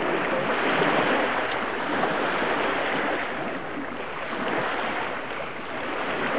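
Steady rushing noise of wind and water, easing a little about midway and swelling again, with no speech.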